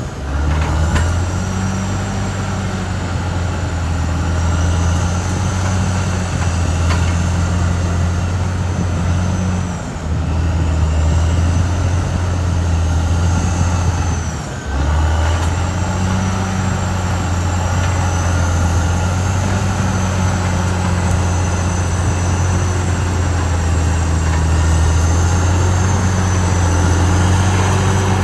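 Caterpillar D6R XL bulldozer's diesel engine running steadily under work, with a faint high whine above it; the engine sound dips briefly twice, about ten and fifteen seconds in.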